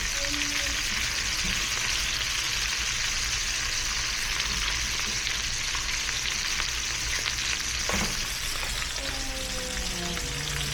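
Pork, shrimp and beef stir-frying in a pan: a steady sizzle with fine crackling and a single knock about eight seconds in. The cook says the pan is too small, so the meat steams more than it sears.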